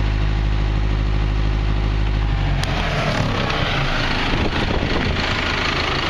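Cat D6K2 dozer's diesel engine idling steadily, with an even low hum. About two and a half seconds in there is a click, and the engine sound turns rougher and noisier, spreading up into a hiss.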